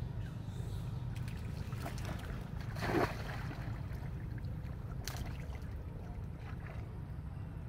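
Water splashing as macaques move about in shallow water, loudest in a swell about three seconds in, with a smaller splash near five seconds. A steady low wind rumble on the microphone runs underneath.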